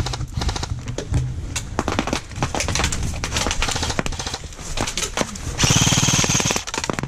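Airsoft BBs from full-auto spraying rattle against the wooden pallet walls of the bunker as a stream of sharp, irregular clicks and cracks. Near the end comes a close, rapid burst of full-auto airsoft fire lasting about a second.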